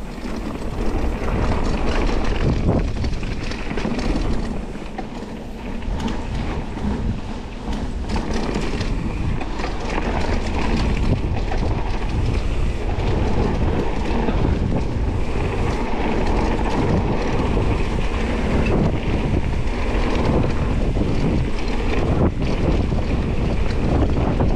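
Wind buffeting the camera microphone while a Specialized Status 160 mountain bike rolls fast down a dirt trail, its tyres rumbling and its frame rattling over the ground. The level rises about a second in and dips briefly a few seconds later.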